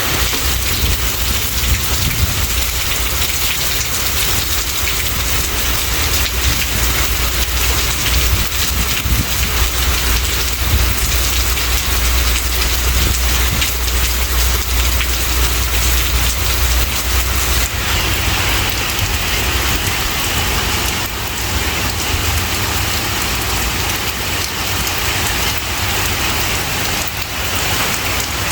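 Heavy rain falling as a steady hiss, with a deep low rumble underneath that fades out about two-thirds of the way through.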